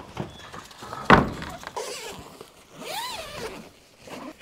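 A single loud thump about a second in, then a short pitched call that rises and falls in pitch.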